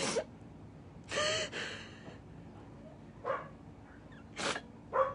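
A woman sobbing: about six short, sharp gasping breaths and sniffles, a few carrying a brief wavering crying tone.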